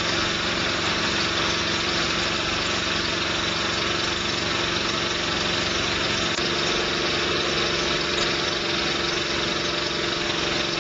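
V-Tex texture sprayer running steadily, its pump forcing the old fluid tube out of the housing: a constant machine drone with a steady hum.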